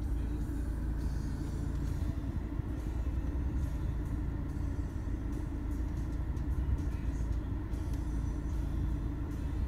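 Steady low rumble in the cabin of a stationary BMW 1 Series.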